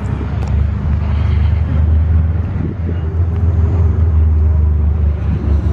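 Car engine idling steadily with a low, even drone that grows louder about half a second in.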